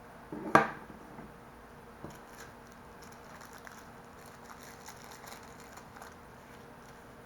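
A single sharp clack about half a second in, dying away within half a second, followed by faint scattered clicks and rustling of small objects being handled.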